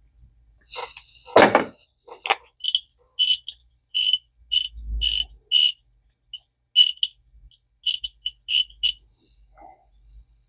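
A knock about a second and a half in, then a Zebco 33 spincast reel's clicker ratcheting in about a dozen short bursts as the mechanism is turned by hand, after the clicker was bent to make it louder.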